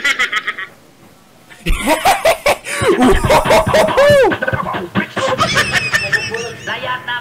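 People laughing loudly in repeated rising-and-falling bursts, starting just under two seconds in after a short lull.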